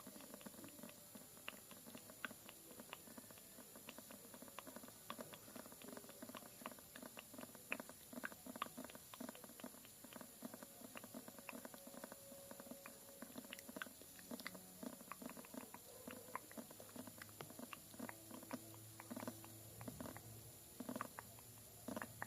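Faint ASMR tapping: quick, light, irregular taps and clicks, several a second.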